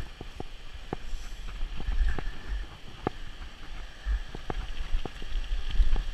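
Mountain bike rolling along a dirt singletrack: sharp, irregular clicks and rattles from the bike over bumps, with wind buffeting the microphone in low gusts.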